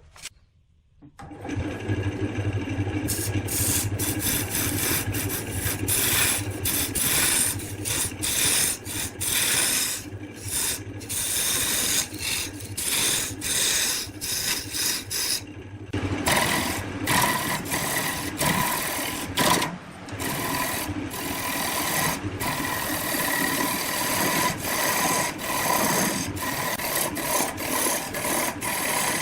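Wood being worked on a running lathe: a tool scraping and rasping against the spinning workpiece. It starts about a second in and breaks off briefly many times.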